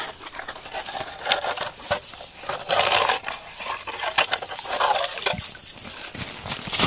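A knife chipping and scraping at the ice around the rim of an ice-fishing hole, widening it: irregular sharp clicks and crunches of breaking ice and slush.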